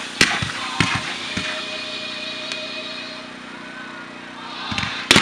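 Display fireworks going off: three sharp bangs in the first second and a half, a steady hiss, then two loud bangs close together near the end.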